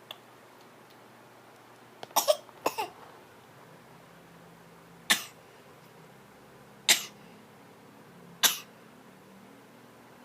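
Short put-on coughs. A quick cluster of four comes about two seconds in, then three single coughs follow one and a half to two seconds apart.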